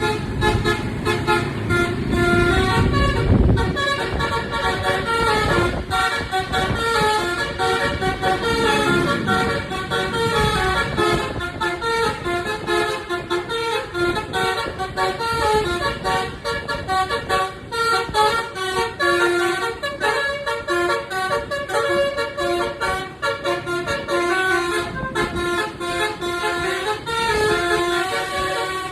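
A bus's basuri telolet horn, a set of musical air-horn trumpets, playing a tune in quick stepping notes. A bus engine rumbles low under it in the first few seconds.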